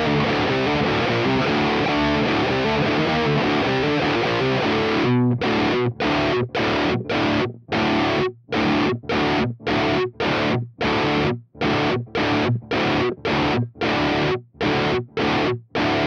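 Parker Fly Deluxe electric guitar through a Diezel VH4 amplifier with heavy distortion. Fast, continuous riffing for about five seconds, then short staccato chord stabs, about two a second, each cut off dead into silence.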